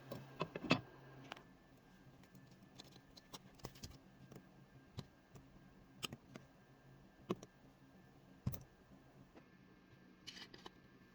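Irregular light clicks and knocks, about a dozen, of things being handled in a kitchen, with the sharpest near the start, over a faint steady hum.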